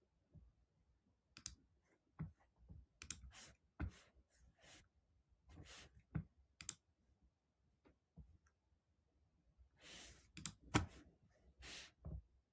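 Faint, irregular clicks and taps, like a computer mouse and keyboard being used, with a few short soft hisses between them.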